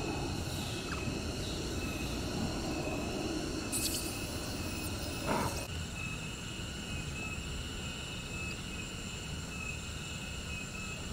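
Outdoor ambience of steady, high-pitched insect calls over a low background rumble. A brief hiss comes about four seconds in and lasts nearly two seconds.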